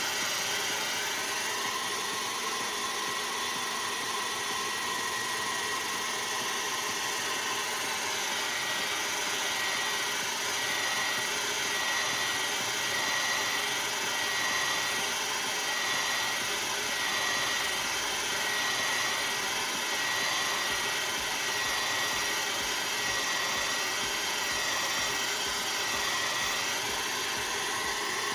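A handheld electric heat gun runs steadily, its fan blowing with a high whine. Through the middle the whine wavers up and down in pitch, as the hot air is played along the edge of a car headlamp lens to soften it.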